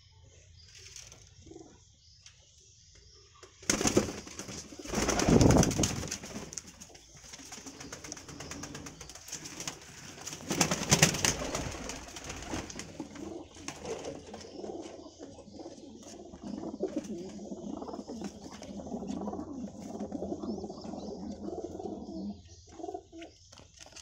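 Domestic pigeons cooing, a long stretch of low cooing through the second half. Two louder bursts of rustling noise come about four and eleven seconds in.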